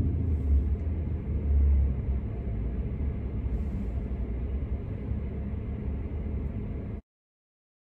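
Low, steady rumble of background noise inside a car cabin, swelling briefly a couple of times in the first two seconds. It cuts off abruptly to silence about seven seconds in.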